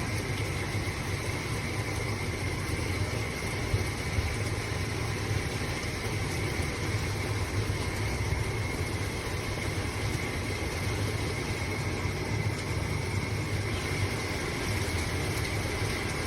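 Shower running: a steady rush of water spraying from a handheld shower head, with a low hum under it.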